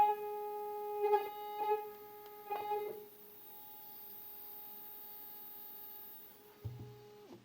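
Two stepper motors wired in parallel on one driver, starved at 2 A shared between them and stalling: a steady whine at one pitch, broken by a few short rough buzzing stutters in the first three seconds, then continuing more quietly until it cuts off with a click near the end.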